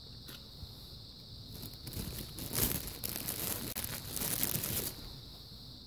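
Crinkly packaging rustling and crumpling in the hands for about three seconds, starting about two seconds in, while batteries are being fitted.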